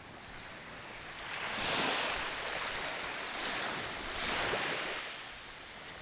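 Small waves washing up onto a sandy beach. The surge swells and fades, louder about two seconds in and again about four and a half seconds in.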